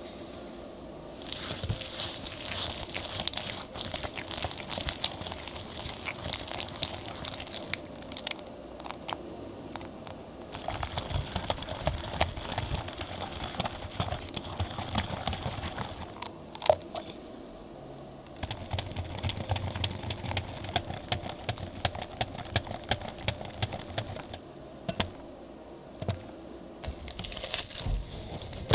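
Wire balloon whisk beating a runny mixture in a glass bowl, its wires ticking rapidly against the glass, with a couple of short pauses. Near the end, plastic cling wrap crinkles as it is stretched over the bowl.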